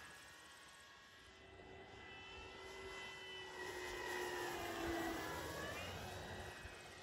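Electric motor and propeller of an FMS Corsair RC model warplane in flight: a whine of several tones whose pitch bends slightly, swelling to its loudest about four to five seconds in as the plane passes low, then fading.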